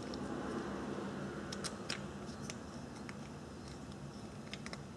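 A few faint, light clicks, with a small cluster near the end, as a small screwdriver bends the metal lock tab on a trolling motor's brush holder.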